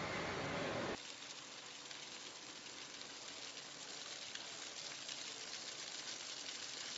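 Steady machine-room noise, cut off about a second in, then an even hiss from a stream of fine white grain pouring into a round stainless mixing tub.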